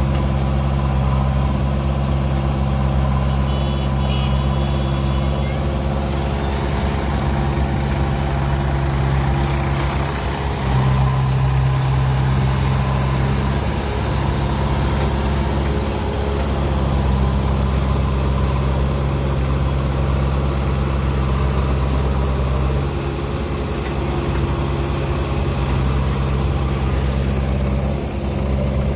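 A heavy machine's diesel engine running steadily, with a slight rise in level about eleven seconds in.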